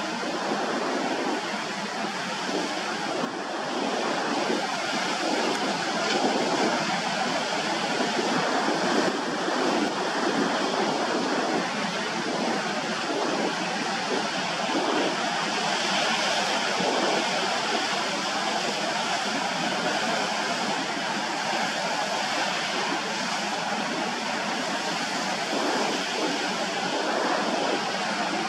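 Sea waves and surf washing steadily, an even rushing noise that swells and eases a little.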